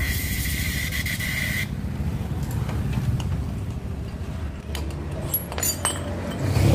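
Rubbing and scraping from hand work on motorcycle parts, with a few light clicks in the second half, over a steady low rumble.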